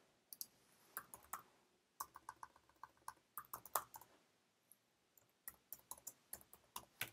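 Faint computer keyboard typing: a run of separate, irregularly spaced key clicks, some in quick little clusters.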